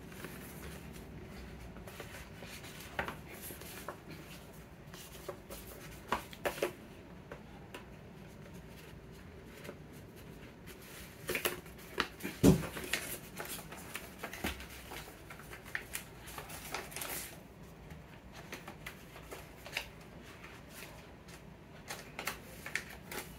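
Hands handling cardboard and paper packaging: card rustling and sliding, with scattered light taps and clicks. A sharper knock comes about halfway through.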